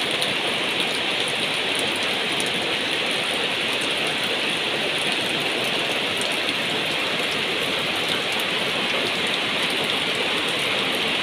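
Heavy rain falling steadily on a roof, splashing into pooled water and onto leaves and plastic seedling bags.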